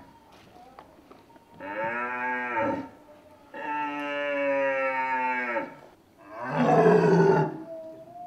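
Imitated red deer stag rutting bellows (brame). Two long, drawn-out moans are followed about six seconds in by a rougher, coarser roar.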